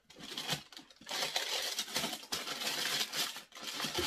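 Tissue wrapping paper crinkling and rustling while a sneaker is handled and packed back into its cardboard shoebox, with a few small knocks of the box.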